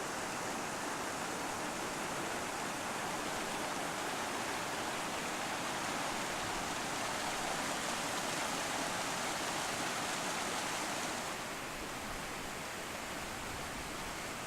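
Steady rushing of a flood-swollen river flowing past the bridge, a constant even roar of water that drops a little in level and brightness about eleven seconds in.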